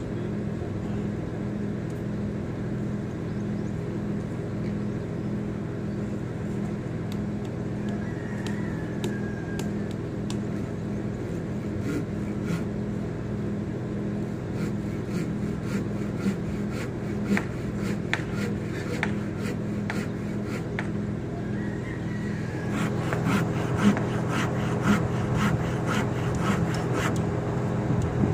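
Heavy diesel engine running steadily at idle, likely the crane truck's. Scattered knocks and taps of work on timber join it, growing busier and louder in the last few seconds.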